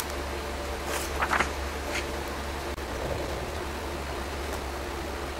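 Steady low background hum, with a few light clicks and rustles about a second in and again at two seconds as small rubber O-rings are picked over on cardboard.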